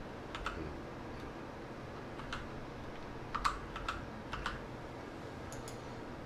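Keystrokes on a computer keyboard, a few scattered single taps and small quick groups, over faint room hiss.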